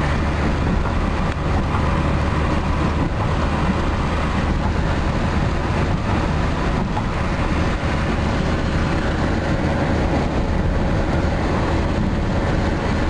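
Transit van's engine and road noise heard from inside the cab while driving at a steady speed: a constant low drone under an even rush of tyre and wind noise.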